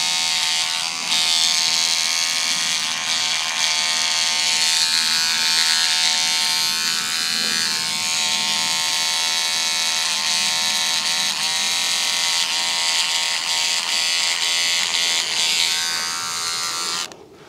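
Electric beard trimmer running with a steady buzzing hum as it trims the neckline under the jaw, switched off abruptly just before the end.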